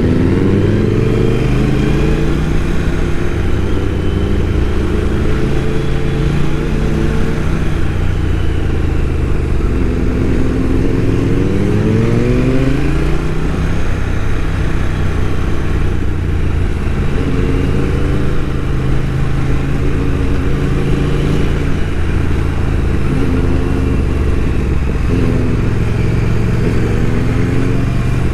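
Motorcycle engine under way on the road, revving up through the gears: the pitch climbs, drops back at each shift, and climbs again several times.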